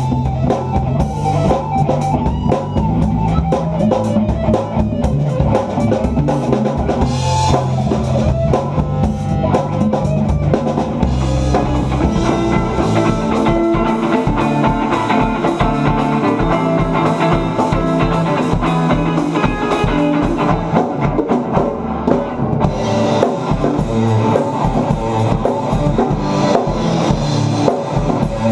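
Full rock band playing with drum kit and guitar, a steady beat and sustained low bass notes underneath.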